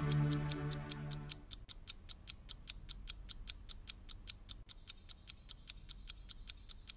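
Analog alarm clock ticking evenly, about four ticks a second. The last held notes of music fade out about a second and a half in.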